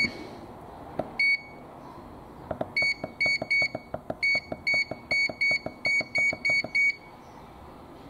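Blomberg LDV42221 dishwasher control panel beeping as the delay-timer button is pressed to step up the start delay. There is one short high beep, then a quick run of identical beeps at about three a second, each with a faint button click.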